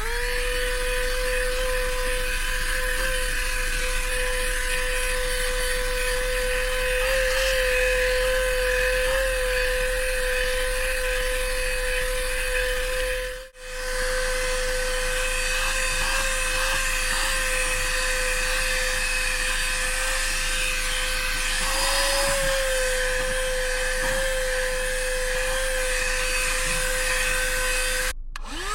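GoMechanic Neutron 4500 12-volt handheld car vacuum cleaner running, its motor making a steady high whine at one pitch. The whine cuts out for a moment near the middle and again near the end, then spins back up.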